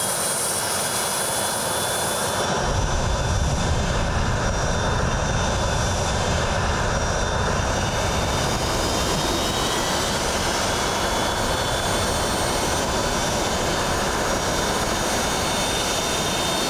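Jet engine from a Russian fighter jet running at or near full thrust: a loud, steady roar with a faint high whine. About two and a half seconds in, the roar turns deeper and heavier.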